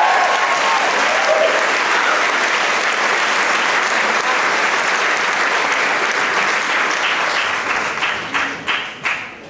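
Theatre audience applauding, with a few voices cheering at the start; the clapping thins out to a few scattered claps near the end.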